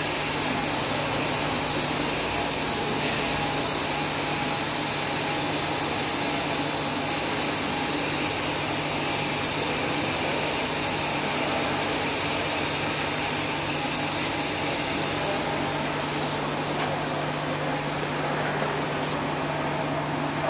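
Steady hissing, humming noise while a TIG weld is run on 316 stainless steel pipe, with a constant low hum under it. The high part of the hiss fades from about fifteen seconds in.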